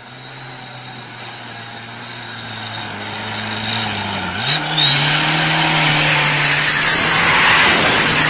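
Tanker truck's engine running as it approaches and passes close by, growing louder, with a steady high whine over the engine note. About four and a half seconds in the engine note and whine dip briefly and pick up again, as at a gear change.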